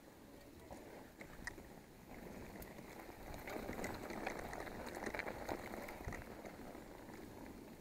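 Mountain bike tyres rolling over loose dirt and gravel: a crackling crunch with scattered small clicks, growing louder about three seconds in and easing near the end.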